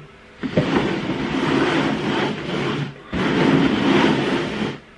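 Upturned plastic bowls sliding and scraping across a tabletop: two long rough scrapes, the second starting about three seconds in.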